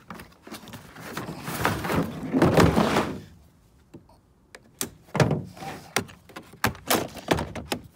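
A long scraping rustle as a plastic tool case slides out of its cardboard box. After a pause comes a run of sharp plastic clicks and snaps as the case's latch clips are cut free with side cutters and snapped open.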